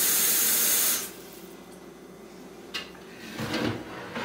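Kitchen faucet running a stream of water into a plastic pitcher, shut off abruptly about a second in. A short click follows in the quiet after it.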